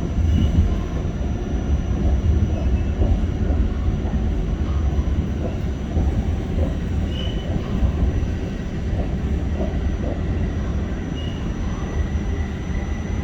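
Interior of a moving New York City subway car on the A train: a steady low rumble of wheels on the rails, with a few faint small clicks.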